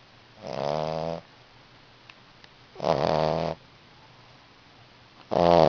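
8-week-old English bulldog puppy snoring in its sleep: three snores about two and a half seconds apart, each lasting under a second, the last the loudest.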